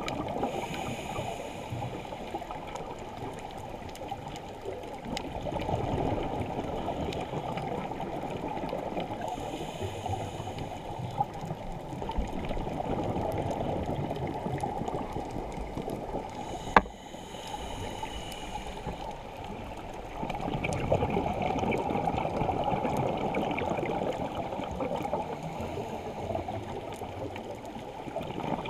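A scuba diver's regulator breathing underwater: a short hissing inhale three times, about every eight to nine seconds, each followed by a longer rush of exhaled bubbles. One sharp click a little past halfway.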